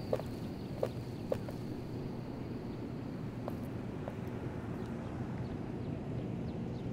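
Footsteps of shoes on stone pavement: a few crisp steps about half a second apart in the first second and a half, then two fainter ones around the middle, over a steady low outdoor background noise.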